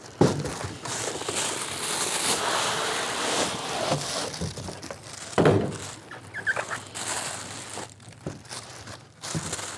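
Cardboard carton flaps and packing foam being handled: a long rubbing, scraping noise as the flaps are opened and the foam blocks worked loose, a couple of knocks as pieces are set down, then scattered rustling of the plastic wrap around the telescope tube.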